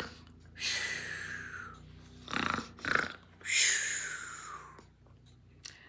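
A woman imitating snoring: long breathy exhales that fall in pitch, with a rougher breath in between them, about two snores.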